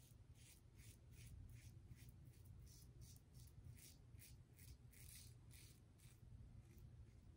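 Safety razor blade scraping through stubble on lathered skin in short, quick, faint strokes, two or three a second, on an against-the-grain pass up the neck.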